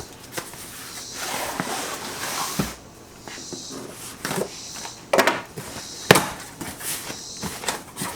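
Small cardboard box being opened by hand: flaps and packing tape rustling and scraping, with a few sharp knocks, the loudest about six seconds in.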